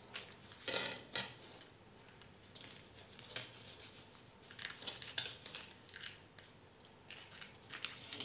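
Kitchen knife cutting through a sheet of set orange jelly on butter paper: a string of short, scratchy strokes as the blade is drawn through the jelly and scrapes the paper beneath.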